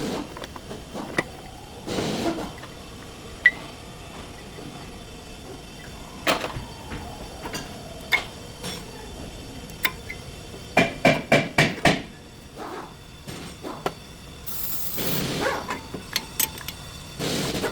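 Metal tools and parts knocking and clinking during work on a car's brakes, with a quick run of about six knocks a little past halfway. A hiss lasts about a second near three-quarters through.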